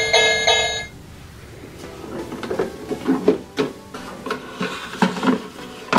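Plastic toy oven door opening and its grill tray sliding out, a string of light clicks and knocks. A short run of electronic tones plays in the first second and cuts off.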